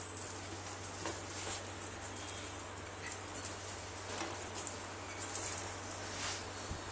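Oil sizzling on a paratha on a hot tawa as it is spread over the bread with a steel ladle, with a few soft scrapes and crackles from the ladle now and then.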